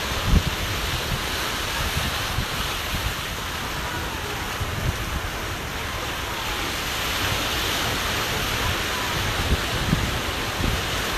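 Wind buffeting the microphone, with low irregular rumbling gusts over a steady hiss.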